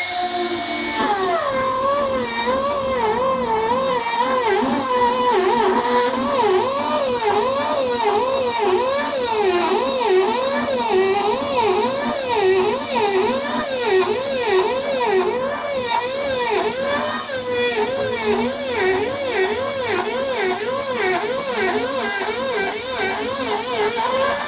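Handheld angle grinder cutting into a granite countertop for a sink opening. The motor's pitch dips and recovers about twice a second as the blade is worked back and forth through the stone.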